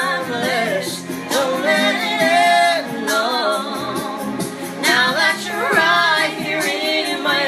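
A woman and a man singing a song together over an instrumental backing track.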